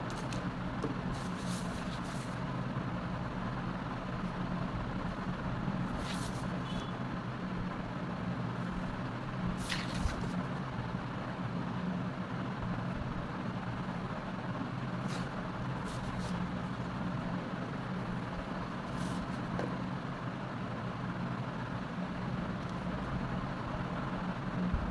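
Steady low mechanical hum over an even hiss, with a few short faint clicks or taps scattered through.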